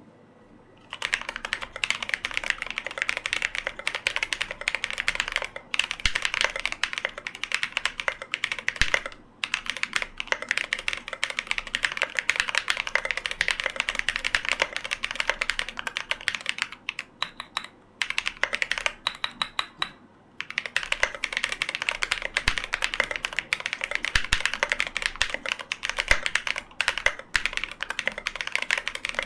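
Cyberboard R3 custom mechanical keyboard with Hey switches being typed on: a fast, continuous run of keystrokes. The typing starts about a second in and has brief pauses now and then, with a longer lull a little past the middle.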